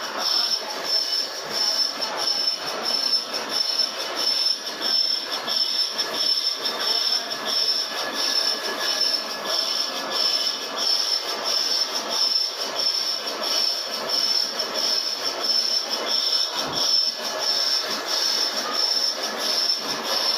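Lathe turning a stainless steel roller: the cutting tool on the metal gives a steady high-pitched squeal over the machine's running noise, the level wavering slightly.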